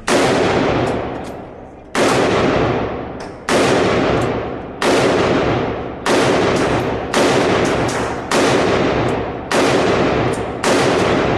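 Gunshots in a slow, steady string: nine single shots about a second apart. Each one is loud and sharp and rings on, fading, until the next.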